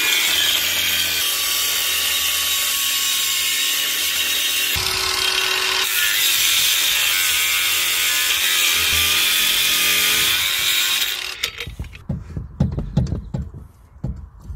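Cordless angle grinder with a cutting disc cutting through a steel leg of a boat-trailer roller support: a loud, steady, high-pitched grinding that changes briefly about five seconds in and stops at about eleven seconds. A few knocks follow near the end.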